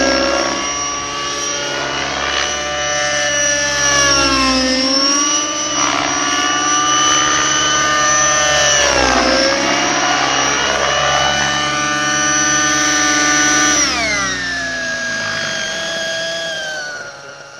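Align T-Rex 600 nitro RC helicopter, its two-stroke glow engine and rotor running at high speed. The pitch dips and recovers twice during aerobatic manoeuvres, then drops sharply about fourteen seconds in and stays lower as the helicopter comes down to a low hover. The sound fades out at the very end.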